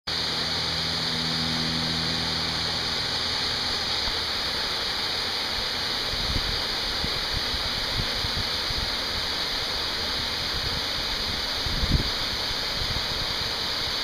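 Steady rush of a small waterfall spilling over rock ledges, with a few short low thumps, the sharpest about twelve seconds in.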